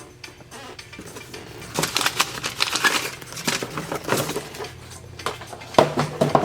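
Sewing machine foot pedal controllers knocking and clattering together as they are handled and lifted out of a box. A run of clicks and rattles starts about two seconds in.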